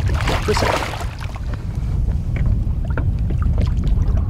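Water splashing and sloshing as hands handle a feisty musky in a landing net at the boat's side, loudest in the first second and then in small scattered splashes, over a steady low rumble.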